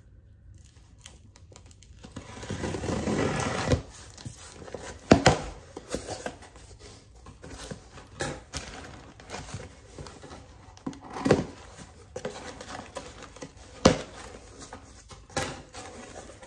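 A cardboard shipping box being opened with a knife: a long tearing scrape about two seconds in as the packing tape is slit, then scattered sharp knocks and scrapes of the blade and cardboard flaps, with light paper rustling.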